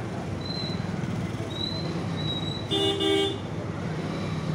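A vehicle horn sounds one short blast, under a second long, about three seconds in, over a steady low hum of street traffic.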